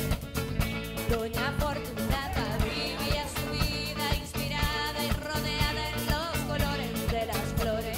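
Background music: a song with a singing voice over a steady drum beat and guitar.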